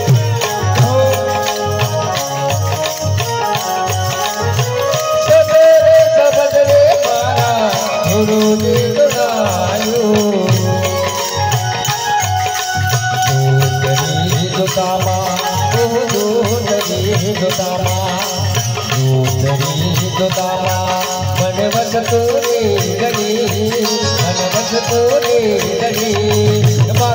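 Live Gujarati folk bhajan music: tabla drumming a steady rhythm under a harmonium melody.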